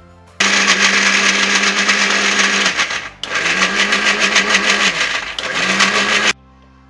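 Electric mixer grinder with a stainless steel jar running loud, grinding dates and milk into a paste. It runs in two bursts: it starts about half a second in, stops briefly around three seconds, then runs again and cuts off sharply near the end.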